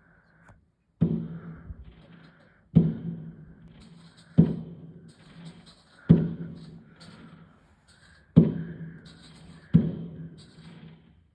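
Fireworks going off: six loud bursts about one to two seconds apart, each dying away over a second or so with faint crackling after it.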